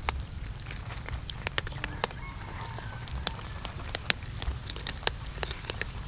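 Cats crunching dry kibble from a metal tray: irregular sharp crunches and clicks, several a second, over a low steady rumble.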